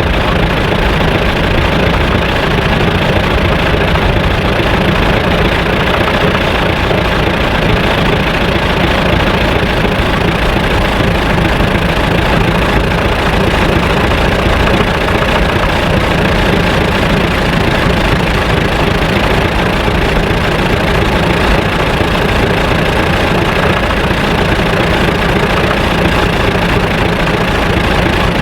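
An engine idling steadily and loudly, with no change in speed.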